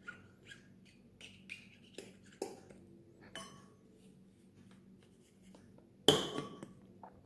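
Light clicks and taps of espresso prep tools against a portafilter and its metal dosing ring while the coffee grounds are worked in the basket, then a louder metallic clink with a short ring about six seconds in.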